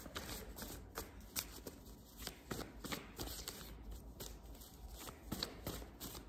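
A tarot deck being shuffled by hand: an uneven run of quick card flicks and taps.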